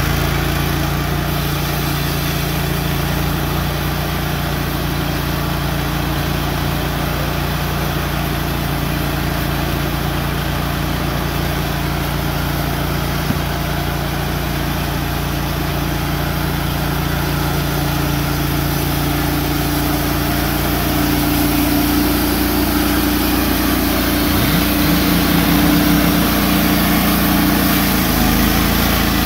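Gas engine of a Wood-Mizer LT15GO portable band sawmill running steadily as the saw head is pushed along a log, cutting a board. It grows louder over the last several seconds as the head comes nearer.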